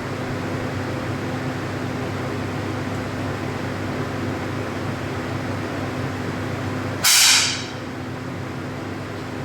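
A single 10 m air pistol shot about seven seconds in, a short sharp hissing crack that dies away within half a second, over a steady hum of ventilation.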